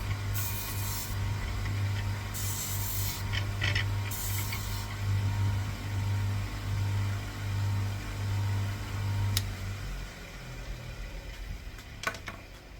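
Electric polishing wheel motor running with a steady hum, with short bursts of rubbing as the brass shell fuze is pressed against the spinning wheel in the first few seconds. About ten seconds in the motor is switched off and the hum dies away, followed by a few light clicks as the fuze is handled.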